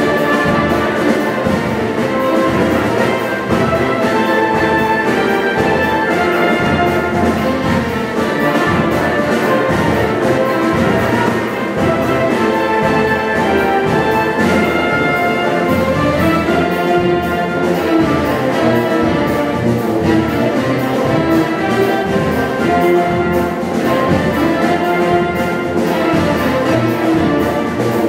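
Wind band of brass, saxophones and woodwinds with tuba playing a medley of traditional Brazilian pastoril tunes, the full ensemble sounding continuously.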